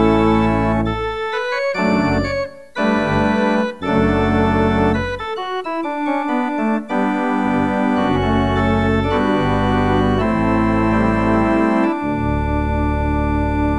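Organ playing the postlude that closes the service: held chords changing every second or so over deep bass notes, which drop out twice for a few seconds and return strongly about twelve seconds in.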